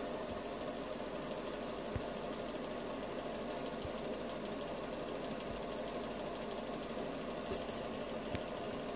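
Steady mechanical hum of a small motor, with a few faint clicks, two of them near the end.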